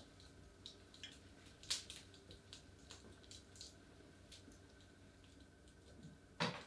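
Quiet room tone with a faint steady hum, broken by scattered small drip-like ticks, the clearest a little under two seconds in. A louder short thump comes near the end.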